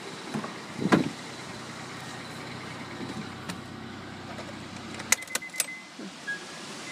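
2000 Honda Odyssey's V6 engine idling steadily just after a cold start, with a thump about a second in. About five seconds in come a few sharp clicks, the engine hum drops away, and an electronic chime starts beeping.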